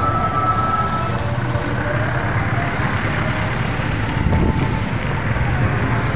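Motor vehicles running on the road in a motorcade: a steady rumble of engines and road noise. A thin steady high tone stops about a second in.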